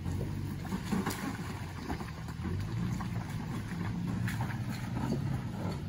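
Toyota Tacoma's engine running at low revs as the pickup crawls over a rocky trail section, its pitch rising and falling a little, with a few faint knocks of rock under the tyres.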